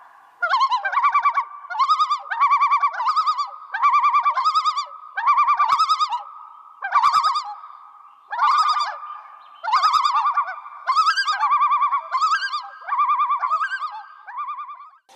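Designed creature sound effect of a Titanis hybrid bird: a string of warbling, trilled bird-like calls, roughly one burst a second, over a steady held tone.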